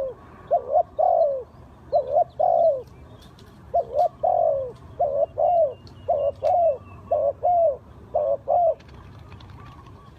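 Spotted dove cooing: a quick run of repeated phrases, each a couple of short coos followed by a longer falling coo, stopping shortly before the end.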